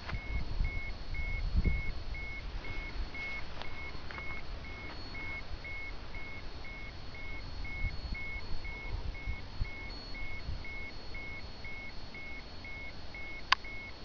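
Handheld ECOTEST MKS-05 radiation dosimeter beeping steadily, about two short high beeps a second, over a low rumble. A single sharp click comes near the end.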